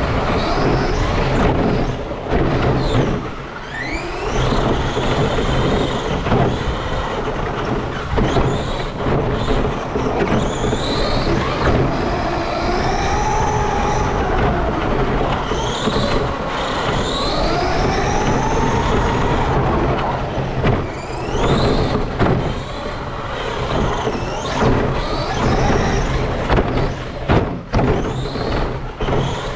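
Electric RC car motor whining, its pitch rising and falling again and again as the throttle is worked, over a steady rumble of the tyres on a dirt track, picked up by a camera mounted on the car. The sound drops out briefly a few times near the end.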